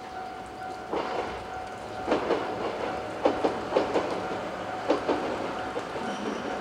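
Two-car 103 series electric train passing over a level crossing, its wheels clacking over rail joints in quick pairs. The crossing's warning bell rings steadily underneath.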